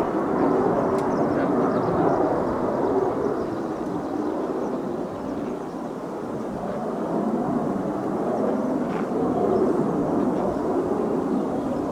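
Jet engine roar from a military jet flying touch-and-go circuits, easing through the middle and building again in the second half.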